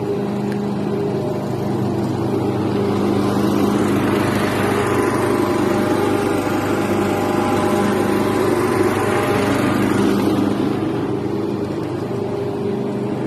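Lawn mower engine running steadily, growing a little louder for several seconds in the middle.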